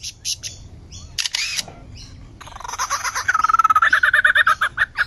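Male lyrebird mimicking a camera: a few separate shutter-like clicks, then a fast run of clicks over a wavering whir, like a camera's motor drive firing a burst, loudest in the second half.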